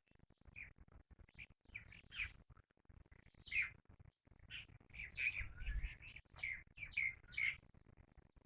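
Birds chirping: a string of short, quick falling chirps, sparse at first and coming thick and fast about halfway through, over a faint steady high hiss.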